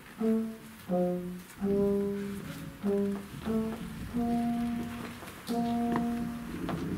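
A wind instrument playing a simple melody at a very slow tempo, one held note after another, each lasting about half a second to a second.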